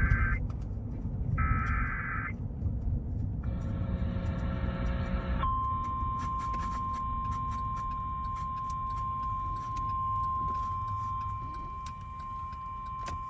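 Emergency Alert System weather alert opening on NOAA Weather Radio. First come repeated bursts of the SAME digital header, harsh buzzy data chirps: the tail of one just at the start, then two more, the last one longer. About five and a half seconds in, the steady single-pitch 1050 Hz warning alarm tone begins and holds. A low rumble runs underneath.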